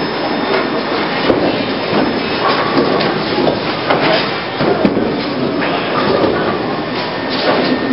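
Bowling alley din: balls rumbling down the lanes and pins clattering, a continuous dense noise with scattered sharp knocks.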